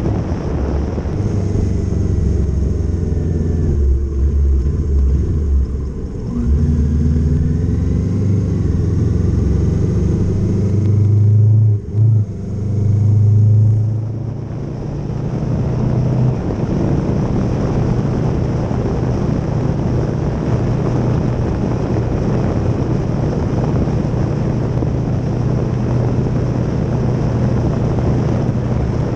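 Kawasaki Z650's parallel-twin engine running under way, its note stepping up and dropping back several times in the first half, with a brief cut about twelve seconds in, then holding steady at cruise. Wind rushes over the microphone throughout.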